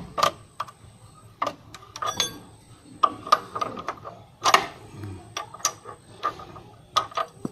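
Irregular sharp metallic clicks and clinks of hand tools working on a motorcycle's front axle, fastening the axle.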